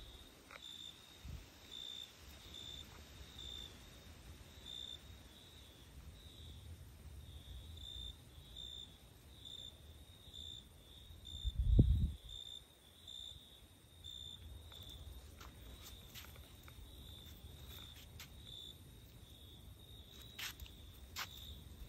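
A cricket chirping: short high chirps on one pitch, about two a second, all the way through. About halfway through comes a single dull thump, the loudest sound, and a few faint clicks come near the end.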